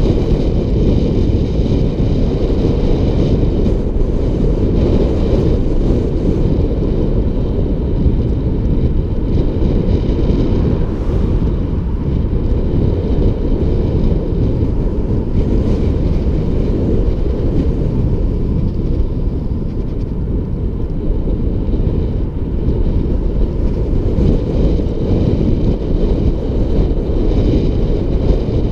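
Wind rushing and buffeting the microphone at speed on a downhill road ride, a loud steady roar with a rumble underneath.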